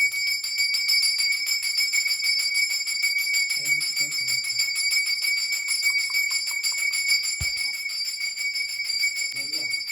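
Brass puja hand bell rung rapidly and without pause during worship, a steady high ringing, with a single low thump about seven seconds in.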